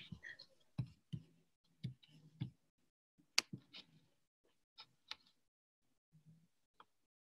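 Faint, irregular clicks and small knocks picked up over a video call, about ten spread unevenly across the few seconds.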